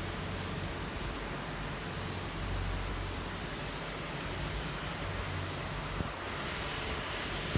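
Street ambience in the rain: a steady hiss of rain and wet road, with the low rumble of traffic engines swelling and fading as vehicles pass.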